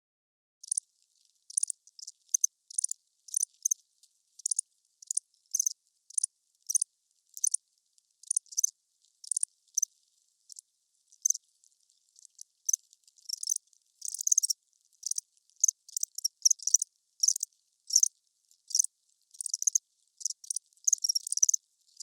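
Cricket chirping: short, high chirps repeated irregularly, about two a second, with silence between them.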